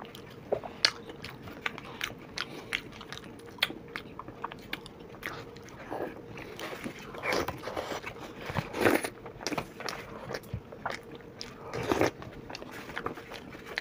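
Close-miked eating of dahi vada: wet chewing and mouth sounds with some crunching, mixed with metal spoons clicking and scraping on disposable plates, in irregular short clicks and bursts with a few louder ones about seven, nine and twelve seconds in.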